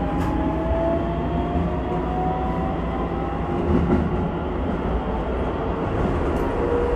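Keisei 3000 series electric commuter train running, its traction motors whining in a tone that slowly rises in pitch over a steady rumble of wheels on rail. The whine fades a few seconds in, and a new, lower rising tone begins near the end.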